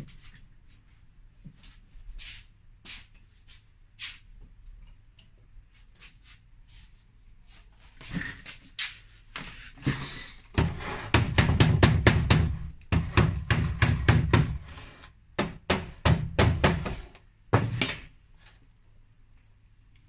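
Hand work on a metal refrigerator door: scattered light clicks and taps, then three runs of rapid, loud knocking over several seconds, ending with a single sharp click.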